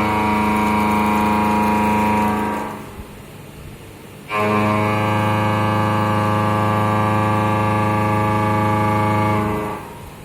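Metal lathe taking cutting passes on a workpiece: a loud, steady pitched hum with many overtones sets in abruptly and holds one pitch. It stops about two and a half seconds in and starts again a little past four seconds, running until near the end.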